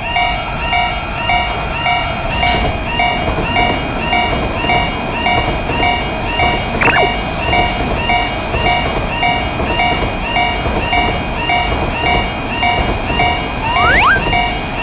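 Railway crossing warning bell ringing at about two strikes a second over the steady rushing noise of a train running past. A quick falling whistle-like glide cuts in about halfway, and rising glides come near the end.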